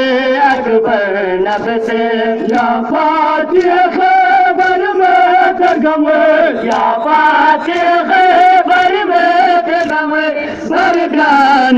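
Men chanting a Balti noha, a Shia mourning lament, in long, drawn-out sung phrases.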